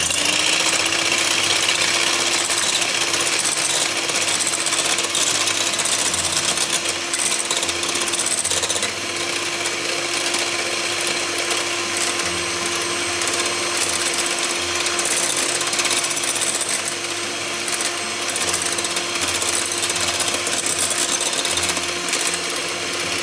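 Electric hand mixer with twin wire beaters whipping cold whipping cream in a bowl, its motor running at one steady pitch. It starts abruptly and winds down as it is switched off at the very end.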